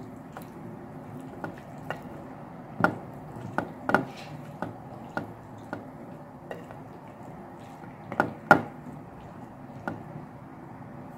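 Close-miked eating and food handling: about a dozen sharp clicks and knocks at uneven intervals, with wet squishing, over a steady low hum.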